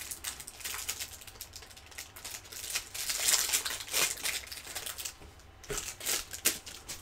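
Clear plastic wrapper of a pack of basketball trading cards crinkling and tearing as it is opened by hand. It is loudest about three to four seconds in, and a few sharp clicks come near the end as the cards are pulled out.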